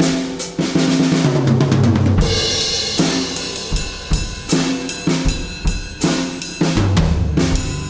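Pearl Masters Maple drum kit with 15-inch Paiste 2002 Sound Edge hi-hats being played: a fill down the toms, falling in pitch, into a cymbal crash about two seconds in, then a steady beat on kick, snare and hi-hats, with another fill on the low toms near the end.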